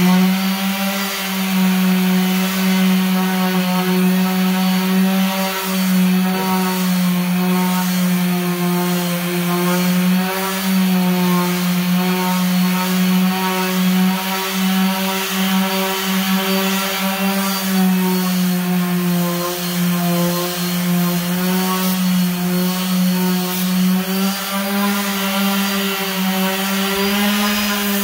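Makita random orbital sander running steadily, its disc sanding the factory finish off a veneered wooden table top. A steady motor hum whose pitch wavers slightly.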